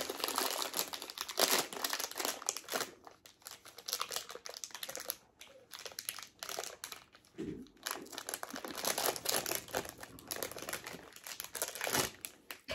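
Crinkly packaging of a Tokidoki blind box being handled and opened by hand: irregular crinkling and rustling, with a few louder flurries.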